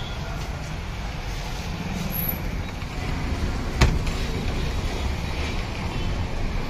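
Steady street traffic rumble, with a single sharp knock about four seconds in.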